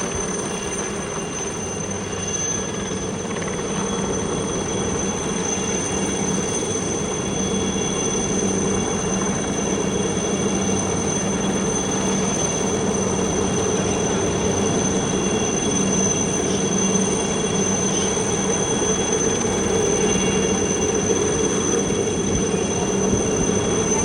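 Helicopter running steadily, its turbine whine high over a steady drone, slowly growing louder.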